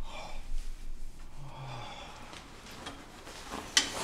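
Soft rustling of clothing and breathing as a knit hat is pulled on and a coat is taken out of a closet, with one sharp clack of a clothes hanger near the end.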